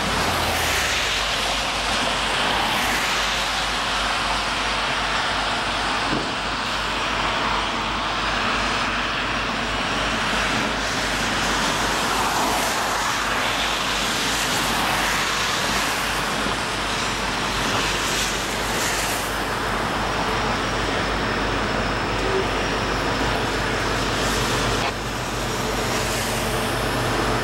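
NJ Transit EMD Geep diesel locomotive leading a slow-moving tie train, its engine a low throbbing rumble under a steady hiss. In the last few seconds a steady engine hum grows plain as the locomotive draws close.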